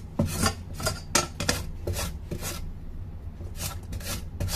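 White radish (daikon) rubbed down the coarse side of a stainless steel flat grater in quick rasping strokes, about two or three a second, with a short pause about three seconds in.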